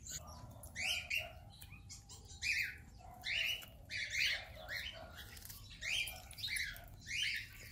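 Small birds chirping: a short, high chirp about once a second, on and off.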